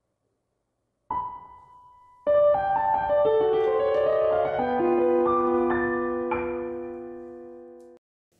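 Opening theme music on piano: one note about a second in, then from about two seconds in a run of notes that ring on together and slowly fade, stopping abruptly near the end.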